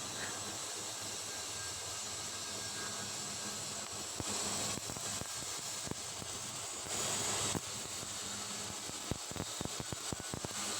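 Stick-welding (SMAW) arc burning a 3.2 mm electrode on a carbon steel pipe while laying the second pass: a steady hiss with crackle. It swells twice, and near the end it breaks into a quick run of sharp pops.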